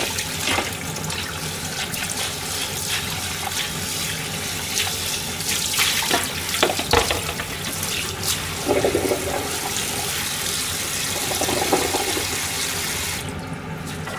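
Kitchen tap running into a stainless steel sink as a plastic container and dishes are rinsed, with a few clattering knocks of dishes midway. The water shuts off near the end.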